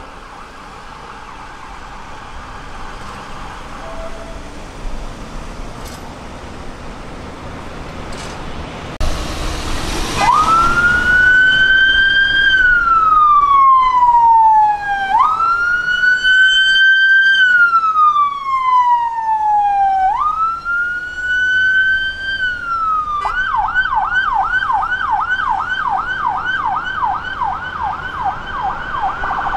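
Electronic siren of a police vehicle responding, faint at first and then loud from about a third of the way in. It sounds a slow wail rising and falling about every five seconds, then switches near the end to a rapid yelp of about three sweeps a second.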